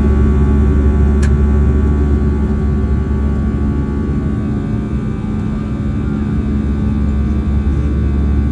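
Steady in-flight noise of an airliner heard from inside the cabin: engine and airflow drone with a low rumble and a constant hum. One brief click about a second in.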